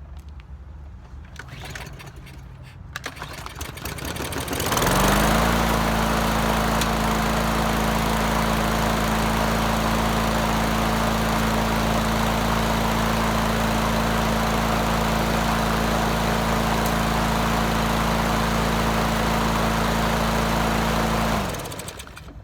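Craftsman lawn mower's small gasoline engine, primed with starter fluid, catches about five seconds in, picks up speed and runs steadily at full throttle. It cuts off abruptly near the end. The engine starts and runs, so the mower works.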